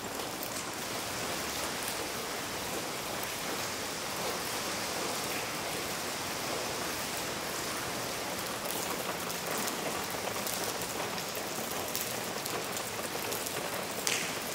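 Steady rain from a tropical storm falling on the glass dome roof over an indoor pool, with a few faint taps of drops.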